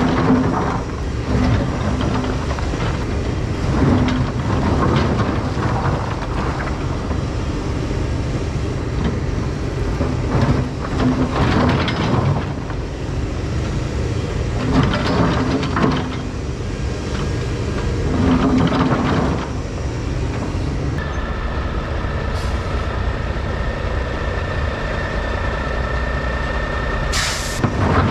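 Takeuchi excavator's engine running under load as its bucket digs and scrapes through riprap rock and mud, with rocks clattering every few seconds. About two-thirds through, a steady high whine joins the engine sound, and near the end there is one short, sharp hiss of a dump truck's air brakes.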